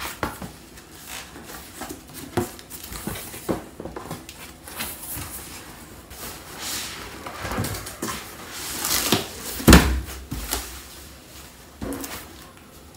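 Cardboard scraping and rustling as a boxed air fryer is worked out of its cardboard shipping carton, with scattered knocks and taps. One heavy thump about ten seconds in.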